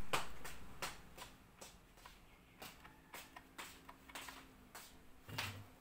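A series of light, irregular clicks and taps, about one or two a second, with a faint steady hum from about the middle and a short low thump near the end.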